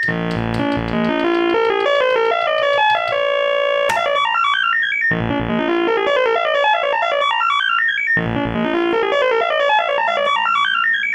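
Make Noise Spectraphon spectral oscillator playing a stored array: bright electronic tone whose individual harmonics step rapidly up and down in zigzag runs. The pattern restarts with a low pulse about every three seconds, with a sharp click a little before the second restart.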